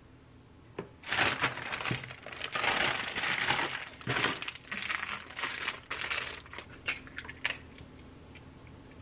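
Plastic bag of pancake mix crinkling as it is handled, for about five seconds. Near the end, a couple of sharp taps as an egg is cracked on a plastic container.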